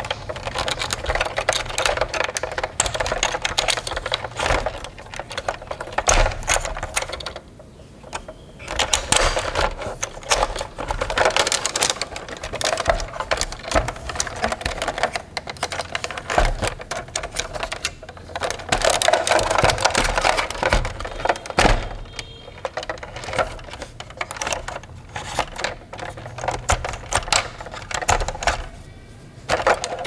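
Dense, irregular plastic clicking and rattling from a plastic toy fire engine being handled, coming in bursts with brief pauses.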